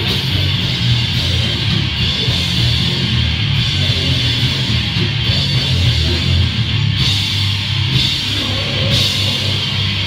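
Live heavy rock band playing loudly: distorted electric guitar, bass and a drum kit with crashing cymbals.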